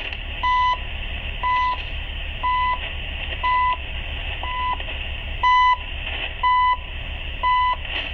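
CHU Canada shortwave time signal on 3330 kHz, received in AM through a ship's MF/HF radio loudspeaker. A short, steady beep of about a third of a second sounds once every second, marking each second, over a steady hiss of radio static.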